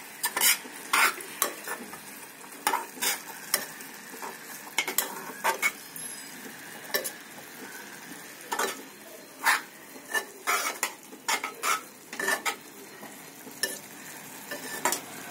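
Steel spoon scraping and clicking against an aluminium pot as grated carrot halwa is stirred, in irregular strokes, over a steady sizzle of the carrots frying in ghee. The milk has cooked off, and cashews are being mixed in.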